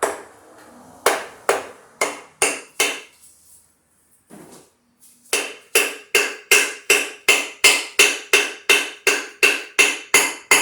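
Hammer blows ringing on the cast-iron cylinder head of a Chevy 307 small-block V8, striking it to break it loose while its head bolts are still in. There is a handful of blows, a short pause, then a steady run of about three blows a second.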